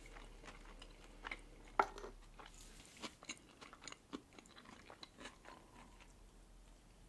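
Close-miked mouth sounds of a person chewing the last bite of a red caviar sandwich: a run of soft wet clicks and smacks, with one sharper click a little under two seconds in.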